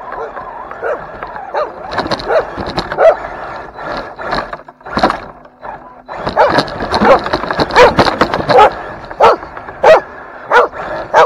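A dog barking repeatedly, scattered barks at first, then a fast run of loud barks about every two-thirds of a second in the second half.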